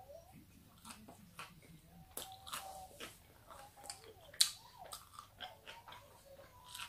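Close-up eating sounds of a chicken fajita in a soft flour tortilla wrap: a bite at the start, then chewing with irregular wet mouth clicks and smacks, the loudest about four and a half seconds in.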